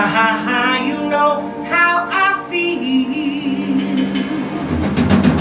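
Live band: a woman singing with vibrato over bass and drums. A quick run of drum and cymbal hits comes near the end.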